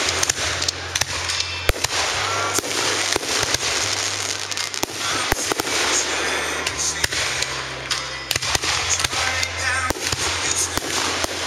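Aerial fireworks shells bursting in quick succession: a dense run of sharp bangs over a continuous noisy wash.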